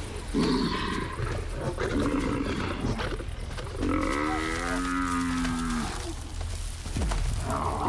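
African buffalo bellowing in distress as lionesses hold it down: one long, low moaning bellow about four seconds in, lasting about two seconds, after a few shorter rough grunting calls.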